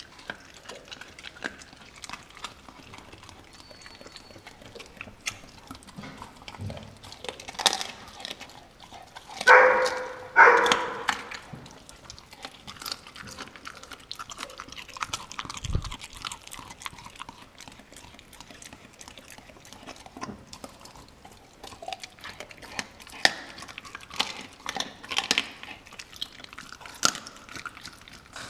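Dogs eating a whole raw turkey, with scattered short crunching clicks of chewing, and two loud barks about ten seconds in.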